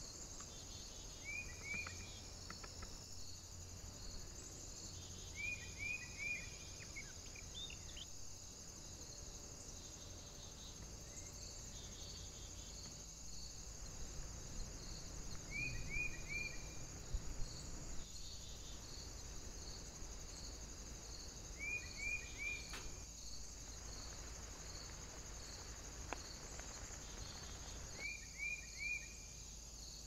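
Insects chirping steadily in woodland: a continuous high hum with a regular chirp about twice a second. A bird repeats a short phrase of three quick descending notes every few seconds, and a few low knocks come around the middle.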